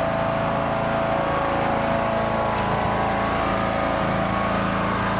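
Riding lawn mower engine running steadily at a constant speed.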